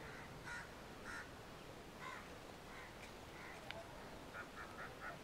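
Faint short bird calls, a few spaced apart and then four in quick succession near the end, with one faint click a little past the middle.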